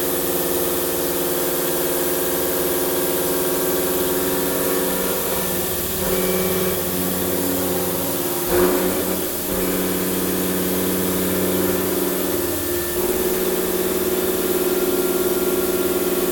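Deckel FP50CC CNC mill face-milling steel with a 63 mm Mitsubishi face-milling cutter at 1100 rpm: a steady pitched cutting hum from the spinning inserts, which shifts in tone a few times, with a brief louder rasp about halfway through.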